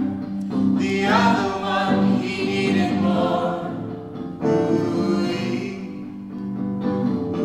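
Music: a group of voices singing together, with a steady low note held beneath them.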